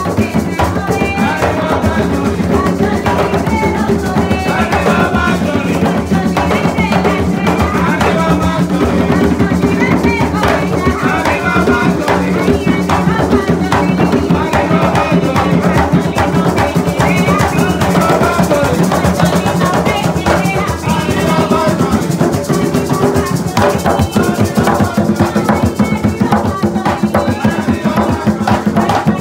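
Live Puerto Rican bomba: several barril hand drums played together in a fast, steady rhythm, with a maraca shaking over the drumming.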